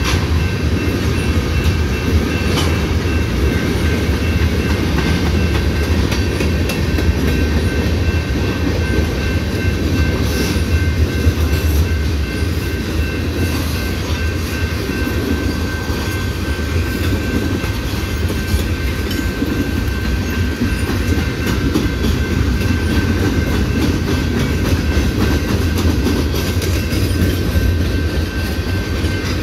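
Freight cars of a manifest train rolling past close by: a steady, loud rumble of steel wheels on the rails with an irregular clickety-clack of wheels over rail joints.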